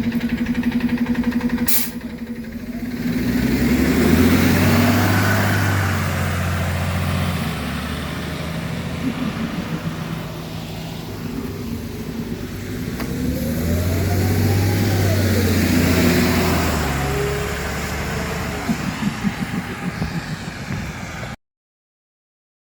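Diesel transit bus engine running and accelerating, with a whine that rises and falls in pitch twice over the low engine note. A short, sharp burst of noise comes about two seconds in, and the sound cuts off suddenly near the end.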